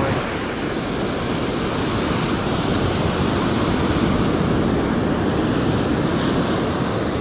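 Ocean surf breaking and white water washing up the beach, a steady rush of waves.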